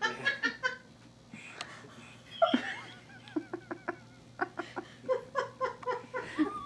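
People laughing and giggling, a quick run of laughs at the start, then scattered short voice sounds and chuckles.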